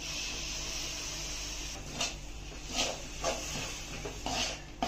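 Pureed spinach poured into a hot steel kadai with a steady hiss for about the first two seconds, then a perforated steel skimmer stirring and scraping the pan in several short strokes.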